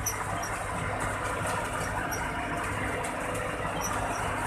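Vehicle engine running steadily, with road noise.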